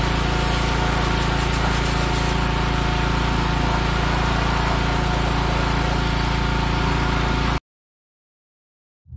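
Pressure washer running steadily, its motor drone mixed with the hiss of the spray. It cuts off abruptly about seven and a half seconds in, leaving silence.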